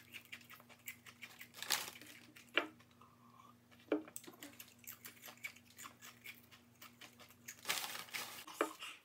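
Faint crunching of ghost pepper chips being chewed, a scatter of small crisp cracks with a few louder crunches, over a low steady hum.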